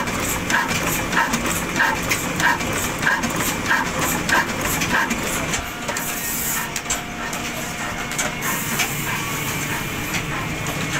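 Shareef 22 hp cold-start stationary diesel engine, rated 300 rpm, running at low speed with an even, slow beat of about three knocks every two seconds. After about six seconds the beat fades into a steadier mechanical hum.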